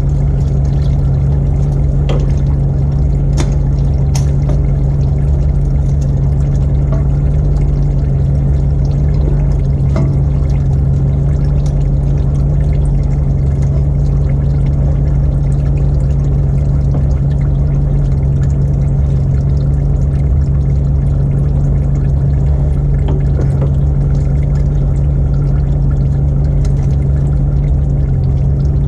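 Hot engine oil pouring in a steady stream from the 6.0L engine's drain into a drain pan during an oil change. A few light clicks come over it early on and about ten seconds in.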